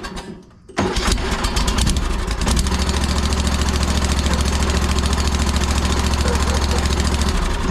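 Allis-Chalmers garden tractor engine starting on a substitute battery: it catches suddenly about a second in, then runs with a steady pulsing beat and drops off near the end. It starts readily, the sign that the fault was the old battery.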